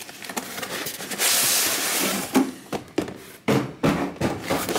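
Cardboard box sliding out of an outer cardboard shipping box: about a second of scraping, hissy cardboard-on-cardboard friction, followed by several knocks and rustles as the boxes are handled.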